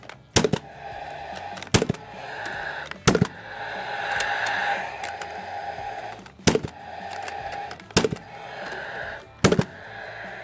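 Cordless hardware nailer driving nails through steel joist hangers into an LVL beam: six sharp shots, most about a second and a half apart, with a longer gap between the third and fourth. A steady whir fills the gaps between shots.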